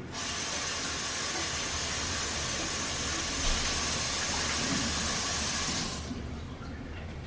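Instant Pot electric pressure cooker hissing steadily as it vents steam while starting to cook, fading out about six seconds in.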